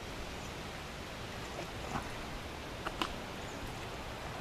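Lakeside ambience: a steady soft hiss with a few short, light clicks and taps in the middle.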